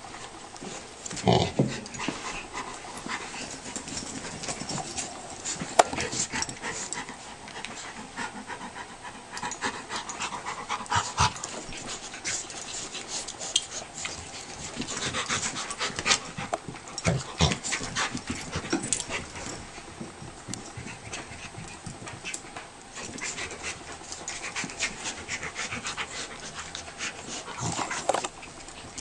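A Rottweiler and a beagle puppy play-wrestling, with dog panting and scuffling and irregular short knocks and scuffs throughout.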